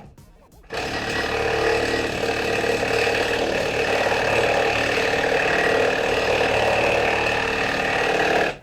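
Impact driver hammering a half-inch lag bolt into the wall. It starts just under a second in, runs steadily for about eight seconds, then stops.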